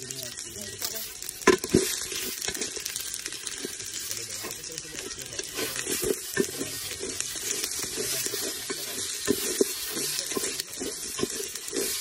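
Spices (bay leaves, chilies and ginger) sizzling in oil in a metal cooking pot while a spatula stirs them, scraping and knocking against the pot, with two louder knocks about a second and a half in.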